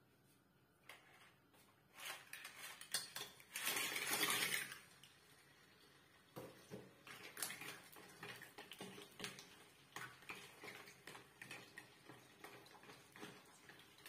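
Clams in their shells going into a frying pan of hot oil, with a loud noisy burst about four seconds in, then the shells clicking and scraping against the pan as they are stirred with a wooden spatula.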